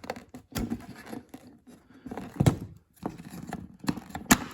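Plastic shifter-boot trim in a car's centre console being pried and worked loose by hand: scraping and rustling broken by three sharp plastic clicks.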